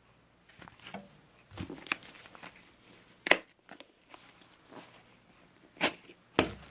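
Small objects being handled on a table: a few scattered sharp clicks and knocks, the loudest about three seconds in and two more near the end.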